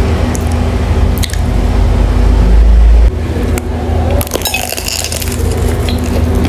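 Close-miked eating of dim sum: chewing and mouth noises with a few sharp clicks and clinks, over a loud, steady low hum that swells about two seconds in and drops off suddenly about a second later.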